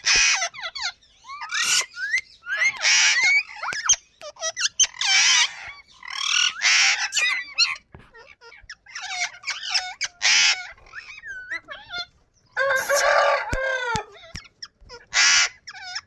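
Ring-necked parakeets screeching: about ten harsh squawks, roughly one a second, with short whistled chirps in between and a longer screech near the end.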